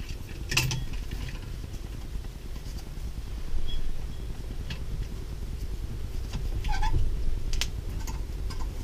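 Light metallic clicks and clinks as a valve spring compressor is fitted and lined up over a valve on an aluminium twin-cam cylinder head. A short squeak comes about seven seconds in.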